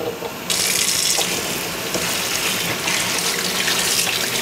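Kitchen tap running into a sink, its water splashing over fresh okra pods being rinsed. The rush of water starts about half a second in and then runs steadily with small swells.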